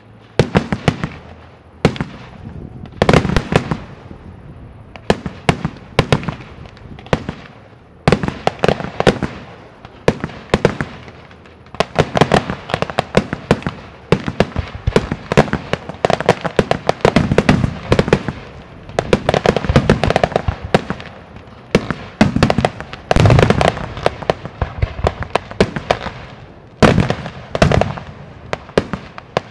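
Fireworks display: sharp bangs and crackling in quick clusters. About twelve seconds in they thicken into an almost unbroken barrage.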